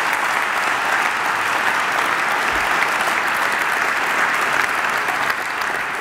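Audience of dancers applauding, a dense and steady clapping.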